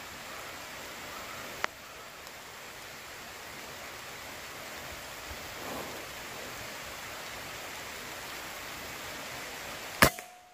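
Steady background hiss, then about ten seconds in a single sharp crack from a Greyhound PR900W Gen 2 .177 (4.5 mm) PCP air rifle firing, followed by a short ringing tone. A light click sounds just under two seconds in.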